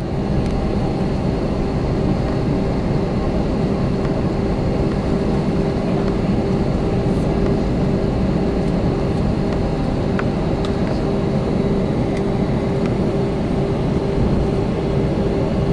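Cabin noise inside an Airbus A321 taxiing: a steady drone from the jet engines at low taxi power, with a low rumble and one held mid-pitched tone.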